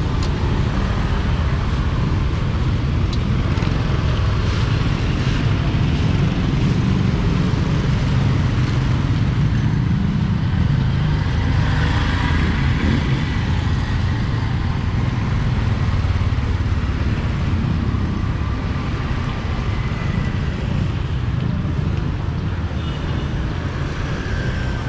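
Steady street traffic noise: a low, continuous rumble of passing motor vehicles.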